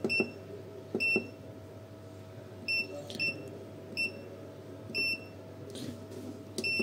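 Battery spot welder's control panel beeping as its weld-pulse time is stepped up, one short high beep per button press. About seven beeps come at irregular intervals, roughly a second apart, over a steady low hum.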